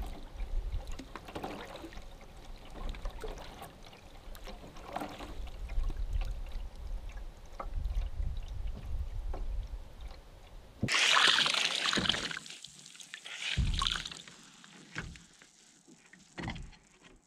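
Canoe paddling: a steady low rumble of wind on the microphone and water along the bow, then from about eleven seconds in, close splashing and dripping of a canoe paddle dipping beside the hull, a few strokes a second or so apart.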